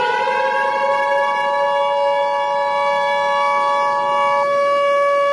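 A civil defense siren winding up in pitch over the first second and then holding one steady tone. Under it runs the two-tone Emergency Alert System attention signal, which cuts off about four and a half seconds in.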